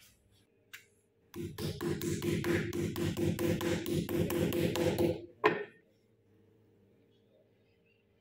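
A metal meat tenderizer mallet pounds a thin slice of raw meat on a wooden chopping block, flattening it. It beats in a rapid, even run of about five blows a second for nearly four seconds, then gives one louder knock.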